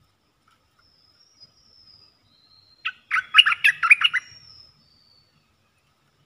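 Stripe-throated bulbul singing a short, loud burst of about eight quick bubbly notes, about three seconds in. Faint thin high whistles from another bird come just before and after it.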